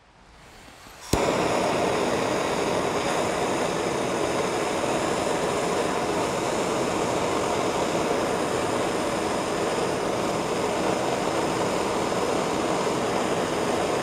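Handheld gas blowtorch lit with a sharp click about a second in, then its flame hissing loudly and steadily as it is played over the blades of pruning shears, until it is shut off at the very end.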